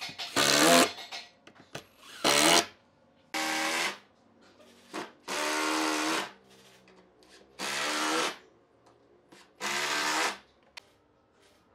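Cordless driver sinking wood screws into pine boards: six short runs of motor whine, each a second or less, with pauses between screws.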